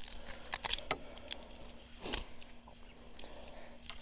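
Small, uneven clicks and light rattles of an electric fence energizer's wire leads and clip connectors being handled and untangled.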